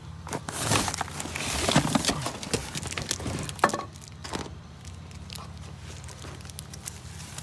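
Rummaging through curbside scrap and junk by hand: rustling with many small clicks and knocks of items being shifted, busiest in the first four seconds and then sparser.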